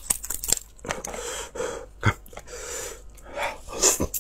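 Kitchen scissors cutting through the shell of a cooked king crab leg: a few sharp snips and cracks in the first second, another about two seconds in, with breathy sucking and chewing sounds of the crab meat being eaten in between.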